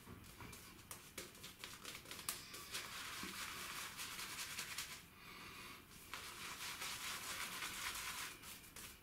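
Silvertip badger shaving brush working soap lather over the face: a crackling, crinkly swishing of bristles through lather, with a short lull about halfway through.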